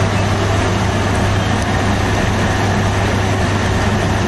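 Steady drone of bakery machinery running: a constant low hum under a broad rushing noise, with no change in level.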